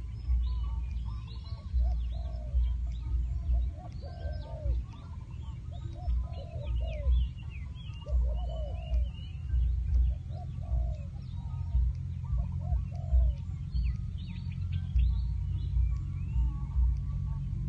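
A decoy bird calling over and over in short, low cooing phrases, with smaller birds chirping higher up. Wind rumbles and buffets on the microphone underneath.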